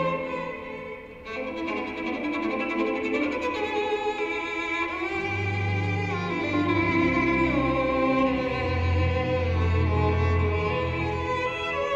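Recorded program music for a figure skating free skate: a violin-led string piece with long held melody notes, joined by deep bass notes about five seconds in.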